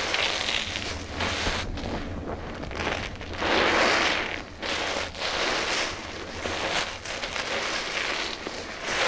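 A sponge loaded with thick shampoo suds being squeezed in the hands: wet squishing of the lather in several swells, the longest and loudest about halfway through.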